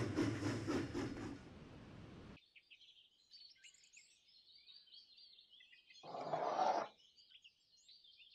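Steam-train running sound effect, rhythmic chuffing over a low hum, that cuts off abruptly about two seconds in. Faint bird chirping follows, with one short, louder noise a little after six seconds.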